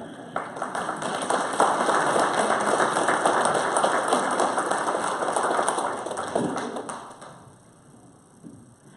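Congregation applauding with many hands clapping. It sets in sharply just after the start, holds dense for about six seconds, then dies away.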